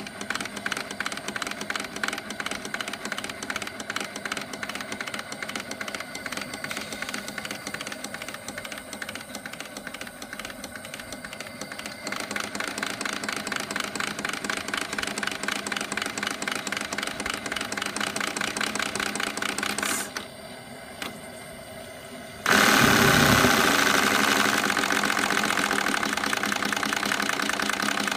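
Miniature three-cylinder brass steam engine of a model tug running with a rapid, even clatter. The beat grows denser and louder about twelve seconds in and drops away briefly around twenty seconds. Then a much louder rushing noise sets in, with the beat still running under it.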